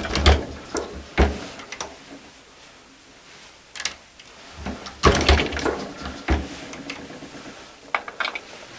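Single-stage reloading press with a Lyman Universal decapper die being worked by hand to punch the spent primers out of fired 5.56 military cases: metal clicks and knocks from the press and the brass, coming in several short bunches.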